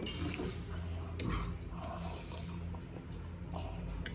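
Quiet eating at a table: chewing sounds and a few sharp clicks of a fork against a plate, over a steady low hum.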